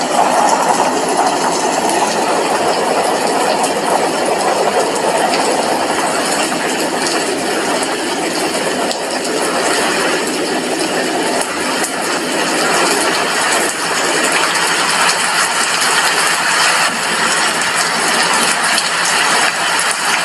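Steady heavy rain, with drops hitting a glass windowpane as a dense, even hiss scattered with small ticks.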